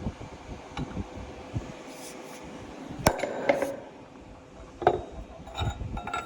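Hammer blows on steel: the old bearing race struck to drive a new race into the final drive housing, with about five or six irregular metallic strikes, the loudest about three seconds in, some ringing briefly.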